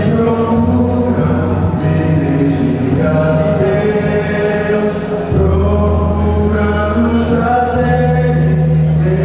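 Male vocal quartet singing a gospel hymn in close harmony into handheld microphones, held chords over a low bass part that drops deeper about five seconds in.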